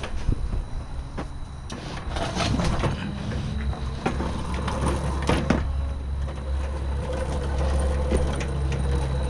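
Coleman CT200U-EX mini bike's small single-cylinder engine started cold after a few weeks unused, then settling into a steady idle, with some knocks and clatter before it catches.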